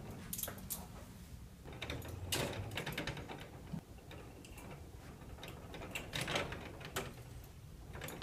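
Irregular small clicks and clinks of pliers and homemade coil springs being hooked onto the rods of a wooden kinetic sculpture, with light rattling of the frame.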